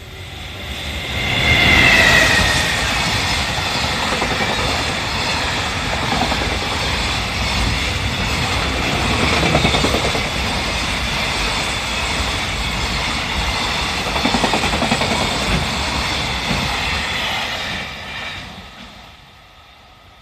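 Container freight train hauled by an EF210 electric locomotive passing close by: a loud, steady rush and clickety-clack of wheels over the rails. It builds over the first couple of seconds as the locomotive arrives, runs for about sixteen seconds as the wagons go past, and dies away near the end.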